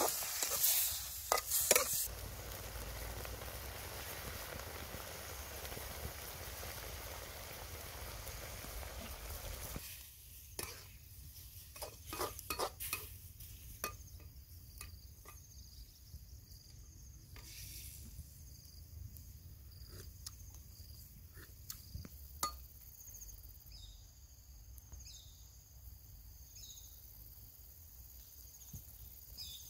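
Sliced octopus frying in a wok over a wood fire: a metal spatula clatters and scrapes in the pan at the start, then a steady sizzle runs for about ten seconds and stops. A second burst of spatula clicks and scrapes follows, then it goes quieter, with insects chirping steadily in the background.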